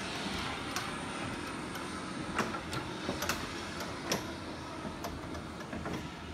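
Steady rushing noise inside a C-5A's fuselage, with scattered sharp knocks and clanks, about half a dozen, as someone climbs up through the structure to the flight deck.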